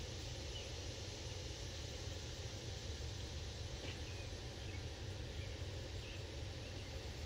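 Outdoor background noise: a steady low rumble with a few faint, brief chirps scattered through it.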